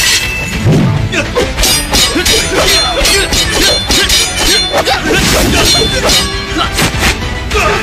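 Action-film fight sound effects: a fast series of hits and metallic clangs over background music.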